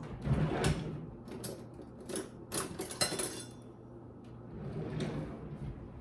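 Kitchen handling sounds: a string of irregular clicks, knocks and rustles as utensils and containers are moved and set down, loudest in the first second, over a low steady hum.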